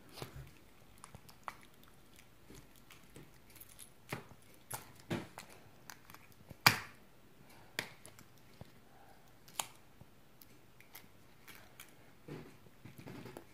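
Fluffy slime with googly eyes mixed in, stirred with a plastic spatula in a plastic bowl: irregular sticky pops and clicks, the loudest about halfway through.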